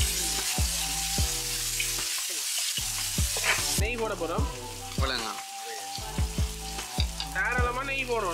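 Oil sizzling and frying chopped vegetables in a large aluminium cooking pot, with a metal ladle stirring. A wavering pitched sound comes twice, about halfway and near the end.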